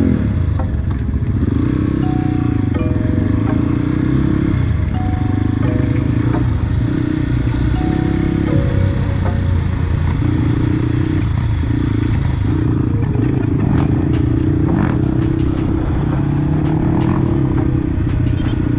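Dirt bike engine running under way, its revs rising and falling, with background music over it. Sharp clicks and clatter come in during the second half.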